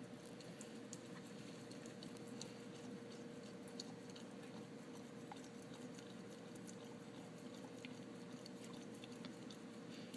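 A Vizsla dog licking ice cream out of a small cup: faint, irregular wet licks and smacks over a steady faint hum.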